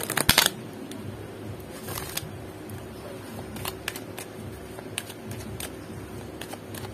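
A deck of oracle cards being riffle-shuffled by hand: a quick, loud flutter of cards in the first half-second, then scattered light clicks and taps as the cards are handled.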